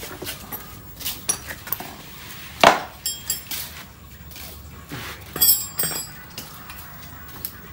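Metal tools and small metal parts clinking and knocking, about a dozen separate strikes. The loudest is a sharp knock just under three seconds in, and a cluster of ringing clinks comes about five and a half seconds in.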